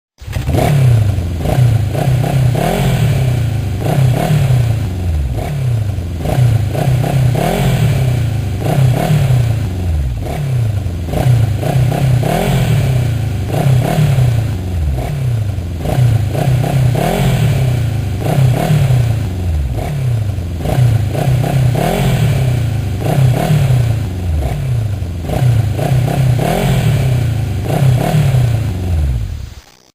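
Motorcycle engine being revved again and again, its pitch rising and falling every two seconds or so, until it stops just before the end.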